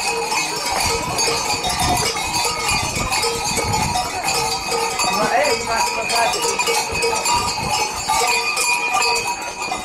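Many large bells, worn by costumed Babaria mummers, clanging without a break as they walk, their ringing tones lying under a dense clatter of strokes, with people's voices in the street.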